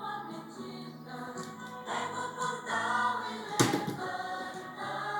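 Music with choir-like singing, with a sharp click about three and a half seconds in.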